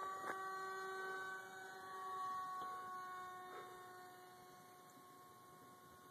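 Electric ducted fan of a radio-control jet whining in flight at a steady pitch, growing fainter as the plane flies off.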